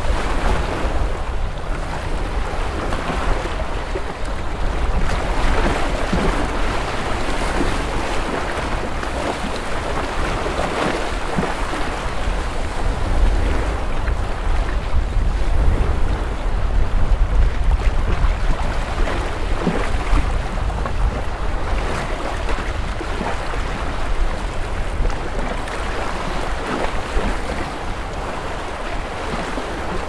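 Small waves washing against a lakeshore in a continuous, gently surging wash, with wind rumbling on the microphone.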